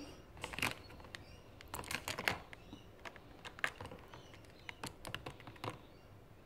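Scattered light clicks and taps from a small plastic keychain toy being handled and moved about in a plastic tub of water.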